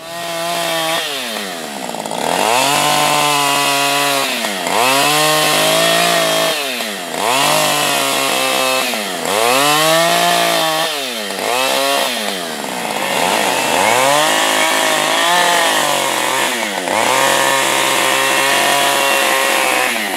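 Husqvarna 550 XP two-stroke chainsaw running hard while its chain is swept flat across the face of a wooden plank to plane it smooth. The engine pitch sags and climbs back again every couple of seconds as the saw is worked across the wood.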